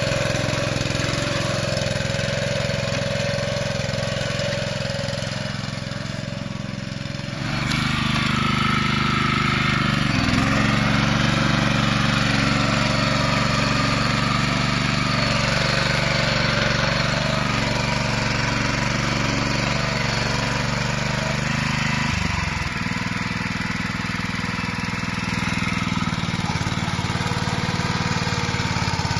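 Two-wheel tiller's single-cylinder petrol engine running steadily while the machine is stuck in soft, waterlogged mud. It gets louder about seven seconds in, and its pitch dips briefly twice as it labours.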